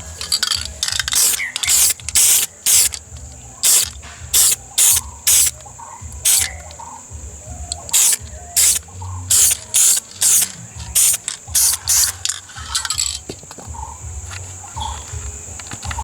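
Aerosol spray can sprayed in short hissing bursts, about fifteen of them in quick irregular succession, stopping about thirteen seconds in.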